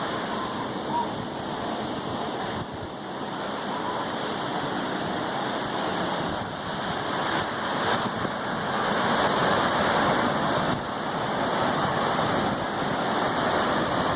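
Pacific Ocean surf: a steady rush of breaking waves that swells and eases, a little louder about eight to ten seconds in.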